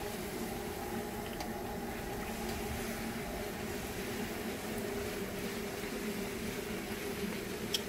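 A puri deep-frying in hot oil in a kadai, a steady sizzle as a wire-mesh skimmer presses and turns it, with a faint low hum underneath.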